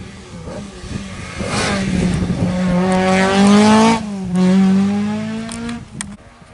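Rally car engine accelerating hard past, revs climbing steeply, dropping sharply about four seconds in like a gear change, then climbing again before the car fades away.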